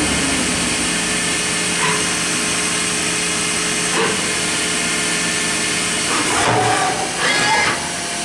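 Mazak VCN 410A-II vertical machining center running an automatic cycle at full rapid: a steady machine hum and hiss, with brief changes about two and four seconds in and a run of short whines near the end as the axes and spindle move.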